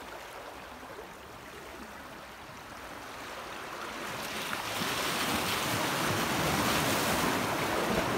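Sea waves washing over shoreline rocks, a low wash at first that swells and grows louder from about halfway through.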